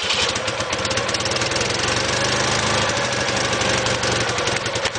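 Citroën 602 cc air-cooled flat-twin engine (M-28) running steadily with a rapid, even firing beat, just after catching on its first start following restoration.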